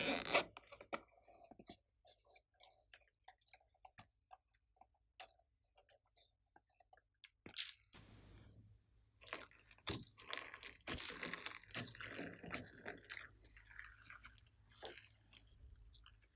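Slime being kneaded and squished by hand, making sticky clicks and crackling pops. The clicks are sparse at first and turn into dense, continuous crackling about nine seconds in.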